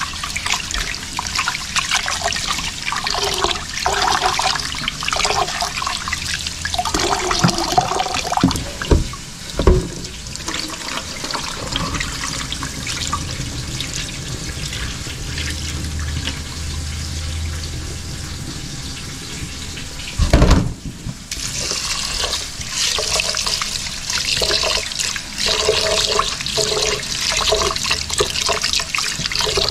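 Rice being washed by hand in a metal pot of water: water sloshing and splashing as the grains are rubbed and the rinse water is tipped off. A few knocks come in the first third, and a louder thump comes about two-thirds of the way through.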